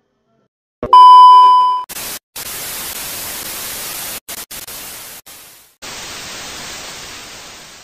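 TV test-pattern and static sound effect: a click, then a loud steady beep lasting about a second, followed by the hiss of TV static that cuts out briefly several times.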